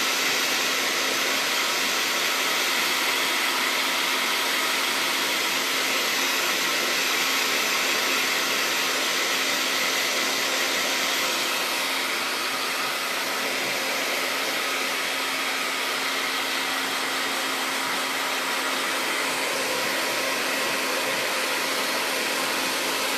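Hair dryer blowing steadily on one setting, a constant airy rush with a steady hum under it, its tone shifting slightly about halfway through.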